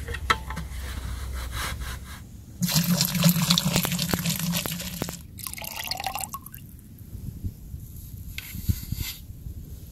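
Carbonated soda (Sprite) poured from a plastic bottle into a plastic bucket, splashing and fizzing for about two and a half seconds, starting about two and a half seconds in. Quieter rustling and handling of the plastic bucket before and after.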